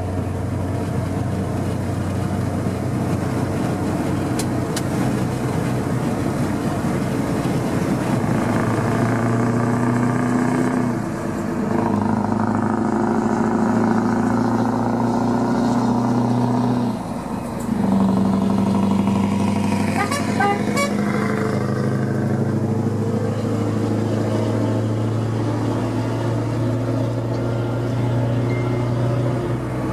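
Scania 164L 480 V8 truck engine pulling steadily at road speed, with short breaks in drive about a third and just over halfway through, where the engine note steps to a new pitch as it changes gear. A brief toot sounds about two-thirds of the way in.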